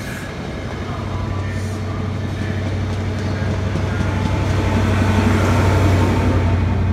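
InterCity 125 high-speed train running past, its Mark 3 coaches rumbling on the rails with a steady low hum. The sound grows louder as the rear Class 43 diesel power car passes, and is loudest about five seconds in.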